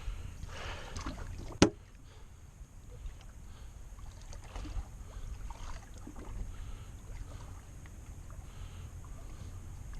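Ambient sound aboard a small fishing boat on open water: a low steady rumble, with one sharp knock about one and a half seconds in.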